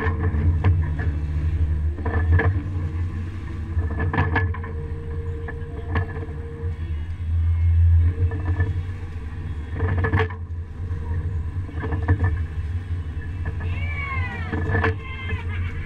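Fishing boat's engine running with a steady low hum, with sharp knocks and clanks on deck about every two seconds and a short run of squeals near the end.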